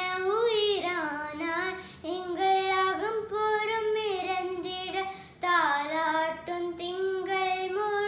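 A boy singing a Tamil song alone with no accompaniment: long held notes that slide up and down, in phrases broken by short breaths.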